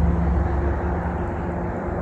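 Heavy truck engine running with a steady low drone.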